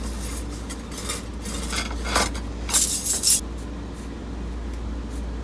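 Small ceramic or glass objects clinking and rattling as they are handled, a quick cluster of clicks loudest about three seconds in, then only a steady low hum.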